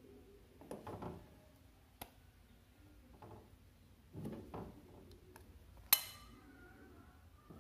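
A fork knocking and scraping in an aluminium pot as boiled eggplant and chillies are lifted out: soft handling sounds, a small click about two seconds in, and one sharp metallic clink with a short ring near the end.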